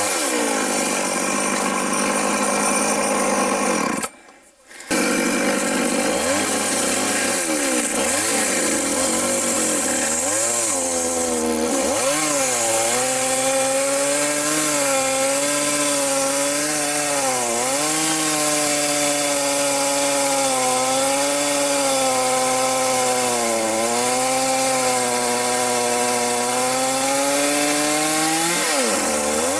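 Chainsaw running at high revs, its engine pitch dipping and recovering again and again as the chain loads in the cut. The sound drops out for about a second roughly four seconds in.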